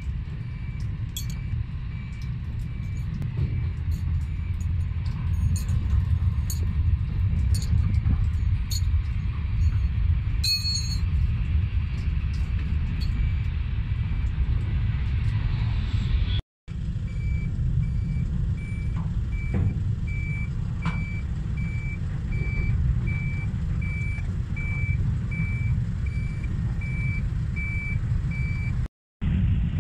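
A vehicle's reversing beeper sounding at an even pace over a strong, steady low rumble, clearest in the second half. The sound drops out briefly about halfway and again near the end.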